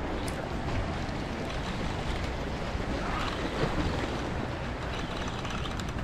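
Wind rumbling on the microphone over the steady wash of small waves against the rocks of a jetty.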